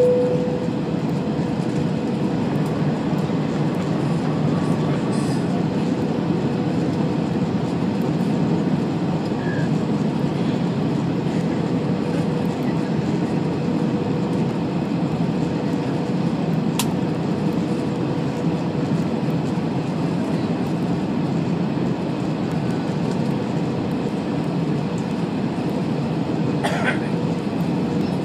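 Steady cabin noise of an Airbus A320 on approach, heard from a window seat by the wing: an even roar of engines and airflow with a faint steady hum. A sharp click about seventeen seconds in and a brief sound near the end.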